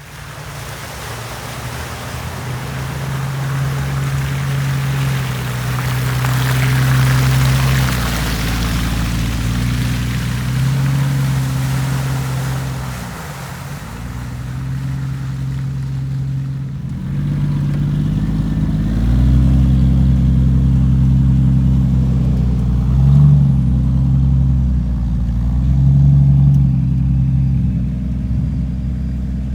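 Off-road vehicle engine running under load as it drives, its revs holding and shifting up and down, with a brief easing of the revs about halfway through.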